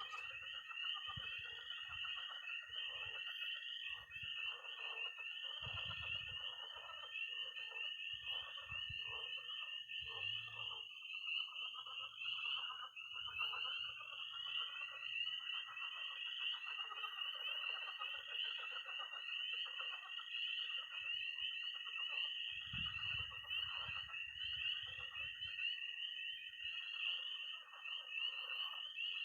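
Early-spring night frog chorus. Spring peepers give a dense, continuous peeping, and toads give a long, steady high-pitched trill that breaks off for a few seconds near the middle and then resumes. Underneath is irregular croaking from frogs in a pond.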